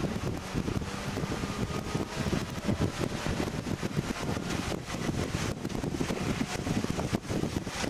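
A Mitsubishi car's engine and wind noise, heard inside the cabin, as the car accelerates hard at high speed, from about 127 to 164 km/h.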